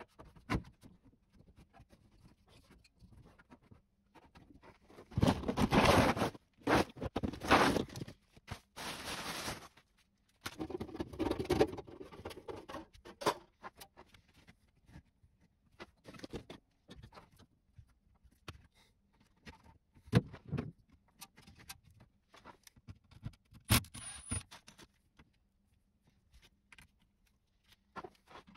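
Handling noises from work on a ducted air-conditioner's sheet-metal indoor unit: scattered clicks, scrapes and knocks, with a run of loud rustling bursts in the first third.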